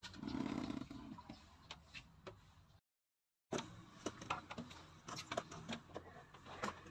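Faint, irregular small clicks and ticks, with a brief low rumble in the first second; the sound drops out completely for under a second about three seconds in.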